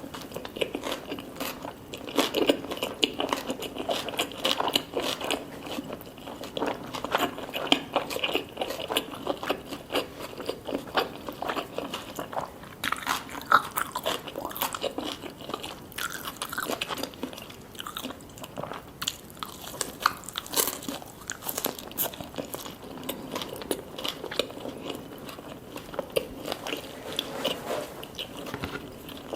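A person chewing and biting food close to the microphone: a dense, continuous run of small crunches and wet clicks.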